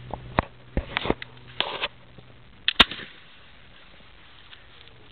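A muzzle-loading rifle being handled during drill: a run of clicks and rattles, then one sharp, loud crack just under three seconds in.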